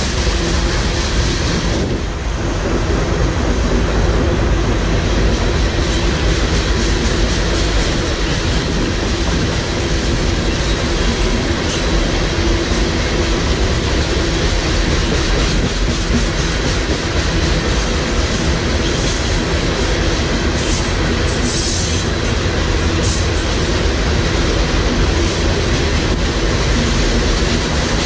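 Freight train rolling past close by, steel wheels clattering over the rails in a steady loud rumble, with brief high-pitched wheel noise about three-quarters of the way through.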